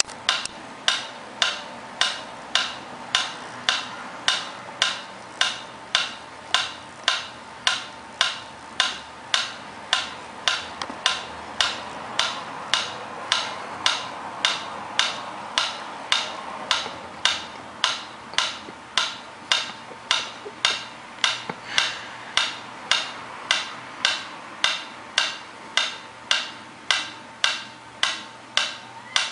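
Pyramid-style mechanical metronome ticking steadily, a sharp wooden click a little under twice a second.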